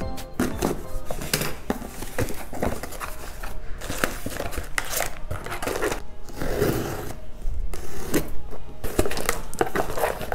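A delivery parcel being opened and unpacked by hand: packaging rustling and tearing, with many sharp clicks and knocks of items being handled, over background music.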